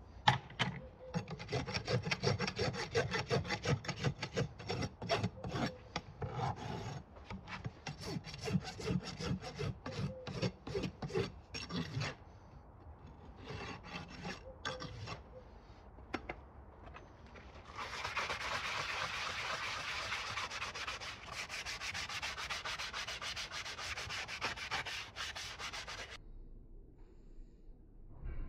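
Farrier's rasp scraping over a horse's hoof wall in rapid repeated strokes, smoothing and finishing the hoof around the newly nailed shoe and its clinches. Partway through the strokes thin out, then a steadier, hissier rub runs for several seconds and stops suddenly.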